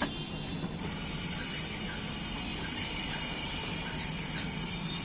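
Steady hiss from a large, hot, flat iron dosa griddle, with a few faint light clinks.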